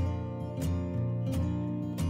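Outro background music: strummed guitar with a steady beat, about three strokes every two seconds.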